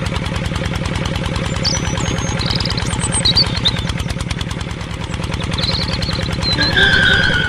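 A small engine running steadily with a fast, even putter. A few brief high chirps sound above it, and a held high tone comes in near the end.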